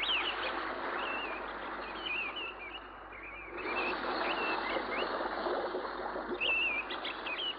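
Water rushing through the sluice gates of a small weir, a steady rush that grows louder about halfway through, with birds chirping many times over it.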